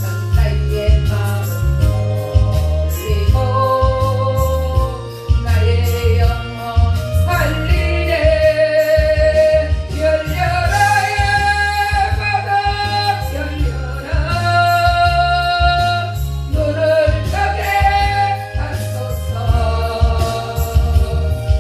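A gospel special song: a voice singing a melody with long held notes over instrumental accompaniment with a strong, steady bass.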